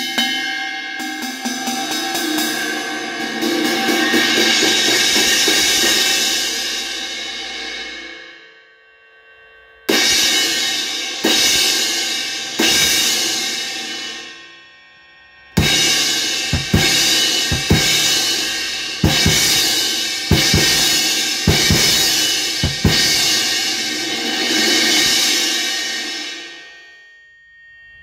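Amedia Thrace Series 18-inch crash cymbal struck with a wooden drumstick. A quick run of hits builds into a long wash that dies away, then a single crash with a few follow-up hits rings out. Then comes a series of crashes about once a second, with a low thump under several of them, before the ringing fades near the end.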